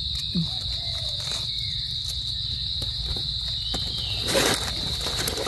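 Steady high-pitched chirring of insects in the forest, with a brief rustle of leaf litter about four and a half seconds in.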